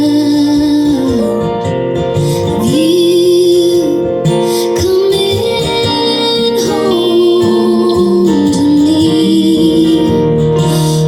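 Woman singing long held, slightly wavering notes over acoustic guitar in a live song performance.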